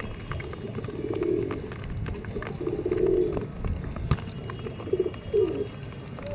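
Domestic pigeons cooing, several low throbbing coos one after another, with a sharp click about four seconds in.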